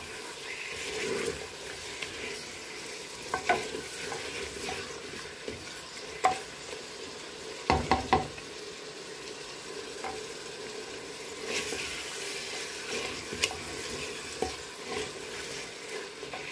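Onion-tomato masala sizzling in oil in a clay handi while a spoon stirs it, with a few sharp knocks of the spoon against the pot. This is the roasting (bhuna) stage, frying the masala until the oil separates.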